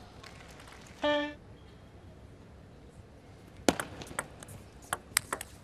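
Celluloid-plastic table tennis ball being struck back and forth in a fast rally: a quick run of sharp clicks of ball on rubber-covered bats and table starting about two-thirds in, the first the loudest. Before it, a short steady-pitched tone about a second in over quiet hall ambience.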